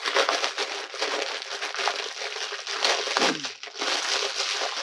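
Packaging crinkling and rustling as balls of yarn are handled, a continuous crackle of quick irregular crinkles.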